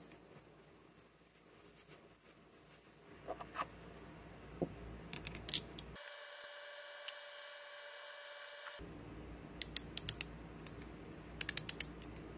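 Small steel parts of a Tekton 3/8-inch split beam torque wrench's ratchet head clicking as they are fitted and the head is closed up, with two short runs of rapid clicks near the end.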